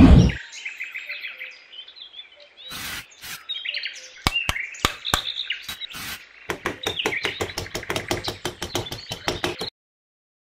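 A loud thud at the start, then small birds chirping over a run of sharp taps and scrapes from a small steel trowel working sand; the taps come quickly, several a second, late on, and everything cuts off suddenly near the end.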